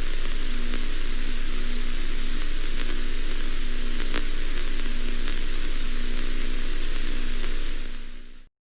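Steady radio static hiss over a low, steady hum, with a few faint clicks. It fades out and cuts to silence near the end.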